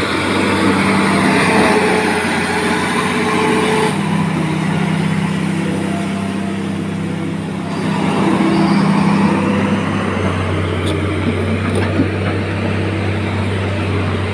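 Hitachi Zaxis 350H excavator's diesel engine running steadily, its note shifting a few times as the machine works.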